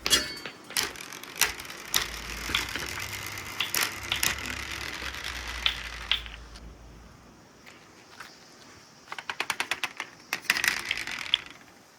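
Glass marbles rolling and clattering down a marble run's stainless steel ramps, with a steady rolling hiss broken by sharp clicks as they strike the track and each other. The run goes quieter midway, then a quick rattle of clicks comes about nine seconds in.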